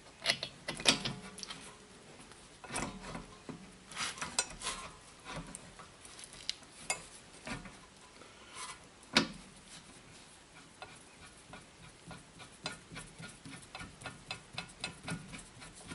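Light metal clinks and taps of rear disc brake hardware being handled and fitted back together, scattered and irregular, with a run of quick, even ticks, about three a second, near the end.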